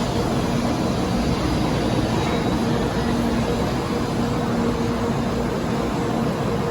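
A Shinkansen train passing through the station at speed: a steady rushing roar at an even level throughout, with a faint low hum that comes and goes.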